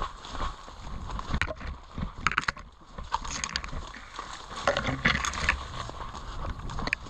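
Footsteps crunching through woodland with gear rustling and knocking: an irregular run of light clicks and low thumps.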